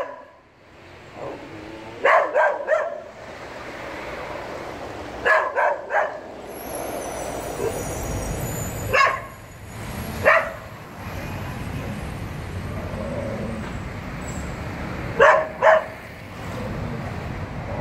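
Stray dogs barking in short runs of one to three barks, several seconds apart, over steady street traffic noise. A thin high squeal sounds for a couple of seconds about a third of the way in.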